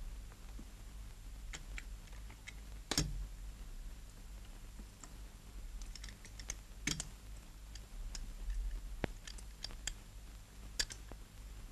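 Sparse light clicks and knocks of small objects being handled, irregularly spaced, the sharpest about 3 and 7 seconds in, over a steady low hum.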